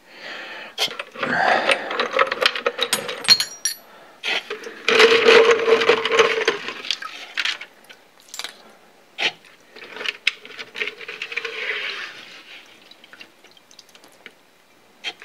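A hand rummages through liquid degreaser in a plastic jar, sloshing and splashing as it pulls out steel rotary-table parts. Metal parts clink and knock against each other and the bench as they are lifted out and set down.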